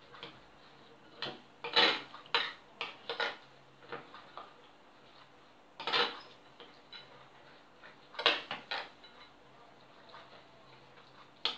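Metal spoon scraping and clinking against a glazed ceramic bowl while stirring a thick chocolate filling, in a few short clusters of clicks with quieter stretches between.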